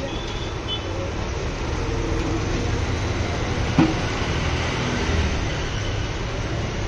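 Jalebis deep-frying in a wide pan of hot oil: a steady sizzle over a constant low rumble, with one sharp knock about four seconds in.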